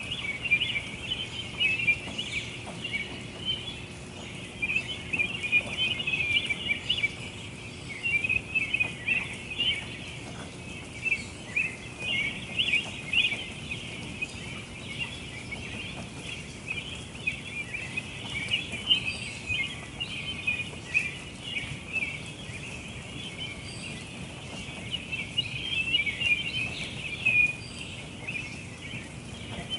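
Many birds chirping at once in a dense, unbroken chatter of short high notes, over a faint low background hum.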